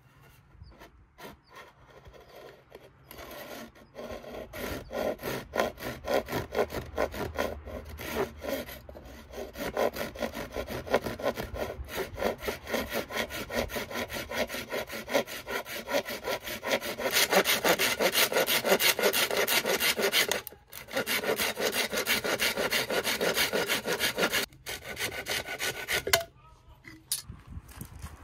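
Hand saw cutting through bamboo in quick back-and-forth strokes, with two short pauses about 20 and 24 seconds in. The sawing stops a couple of seconds before the end.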